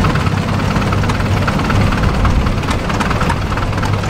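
Vintage John Deere tractor engine running slowly at low throttle as the tractor creeps forward, a steady low engine sound with a faint rapid beat.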